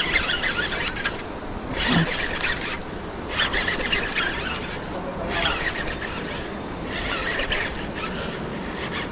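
Baitcasting reel being cranked in short spurts, about five bursts of reeling roughly a second each with brief pauses between them, as the lure is retrieved.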